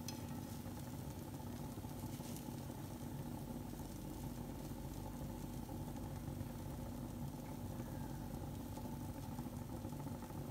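Steady hum of a small electric motor running, holding several even tones without change, over a faint even hiss.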